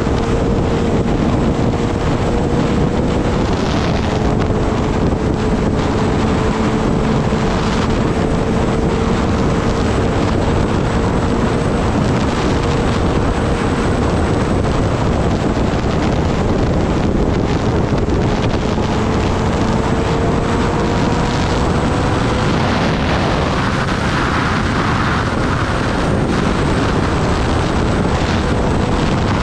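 Wind rushing hard over the microphone on a Kawasaki Ninja ZX-10R at speed, with the bike's inline-four engine note faintly underneath, creeping slowly up in pitch.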